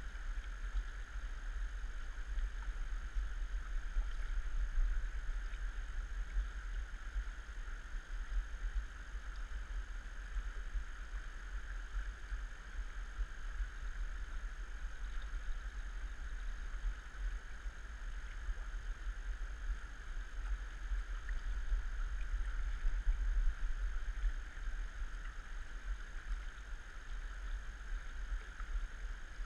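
Steady rush of a fast-flowing river, with a strong low rumble underneath.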